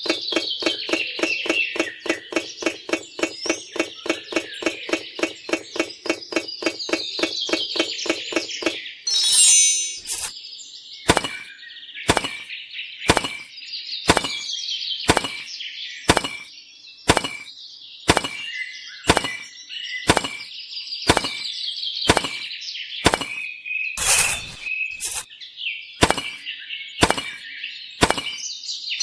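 Birds chirping throughout. For the first nine seconds a rapid low pulsing runs under them, then gives way to sharp clicks about once a second, and a short chime rings about nine seconds in.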